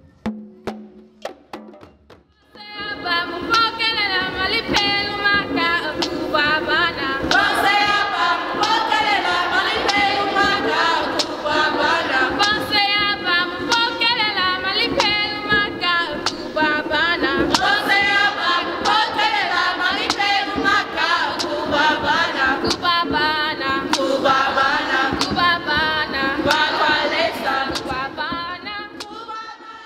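A group of young women singing together, with a steady beat of sharp strikes roughly every three-quarters of a second under the voices. The singing starts about two and a half seconds in and fades out near the end.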